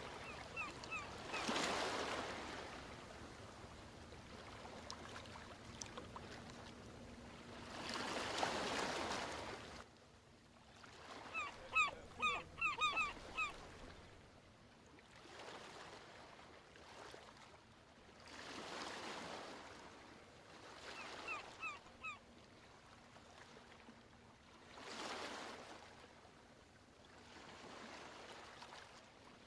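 Ocean waves washing ashore in slow surges every several seconds. Three times, a bird cuts in with a quick run of short, sharp calls; the middle run is the loudest sound.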